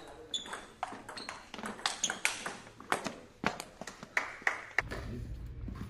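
Table tennis ball struck back and forth in a rally: a quick, irregular series of sharp clicks off bats and table. It stops about four and a half seconds in, giving way to a low steady hum.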